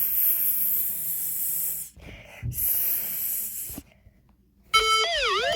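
Two stretches of hiss like radio static, the first about two seconds long and the second under two, with a short break between. After a brief near-silence, an electronic alert tone starts near the end, its pitch holding, then dipping and rising again in a repeating wail.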